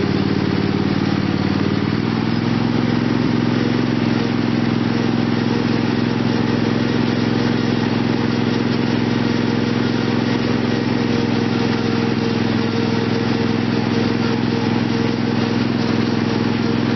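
Re-powered lawn tractor's small engine running steadily; about two seconds in its speed rises a little, then holds even.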